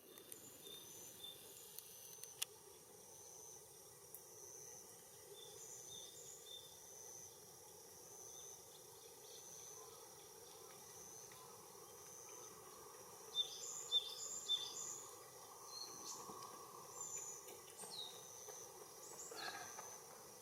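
Faint pond-side outdoor ambience: a steady high insect trill with repeating short high chirps from small birds, loudest in a quick run of three chirps about two-thirds of the way through. A single click about two seconds in.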